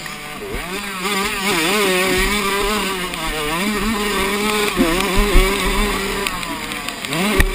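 Minicross motorcycle engine racing on a dirt track, heard from onboard: its pitch rises and falls again and again as the rider works the throttle, with a sharp rev-up near the end. Wind rushes over the microphone throughout.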